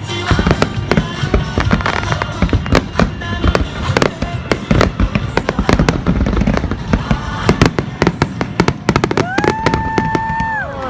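Fireworks finale: a dense, rapid run of shell bursts and crackles over a pop song playing on loudspeakers. Near the end a steady held tone sounds for about a second and a half.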